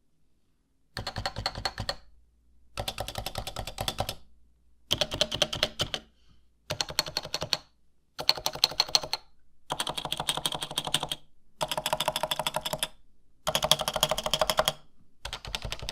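Typing on a Topre Type Heaven keyboard with stock ABS keycaps: its electrostatic capacitive rubber-dome switches give rapid keystrokes in about eight short runs, separated by brief pauses.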